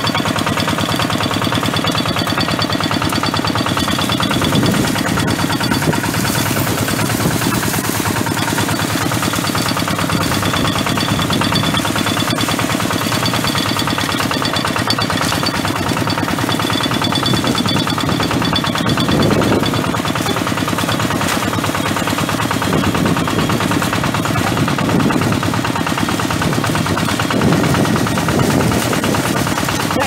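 Single-cylinder diesel engine of a two-wheel hand tractor running steadily, a loud, rapid, even chugging.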